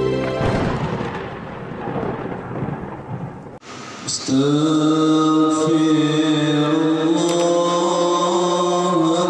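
A noisy, rumbling intro sound effect fades away over about three seconds. Then, about four seconds in, a group of men start chanting dzikir together in long held tones, led by one voice over a microphone.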